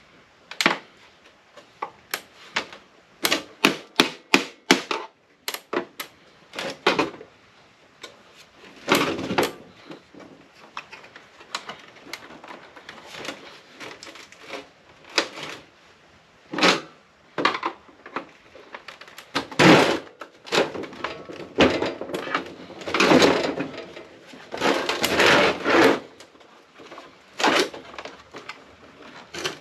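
Irregular clicks, knocks and scraping from hands and tools working on an APC battery backup unit, trying to free a battery that won't slide out. A quick run of sharp clicks comes a few seconds in, and longer, louder scraping about two-thirds of the way through.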